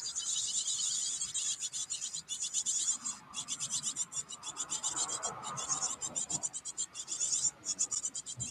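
Chickadee nestlings in a nest box begging: a raspy, high-pitched chatter repeated many times a second, with brief pauses.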